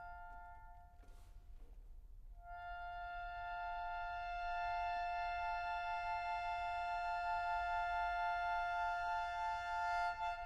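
Classical concert accordion holding a quiet sustained two-note chord that dies away. After a short gap with a brief soft noise, the chord comes back about two seconds in and swells, its upper note wavering rapidly in the second half.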